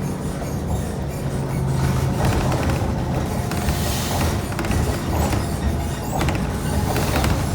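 A bus in motion: a steady low engine and road rumble with scattered rattles and clicks. A hiss swells briefly about four seconds in.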